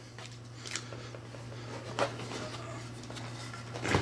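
Hands pressing and smoothing blue painter's tape on a rifle stock and cheek piece: faint rubbing with a few light taps, the loudest just before the end, over a steady low hum.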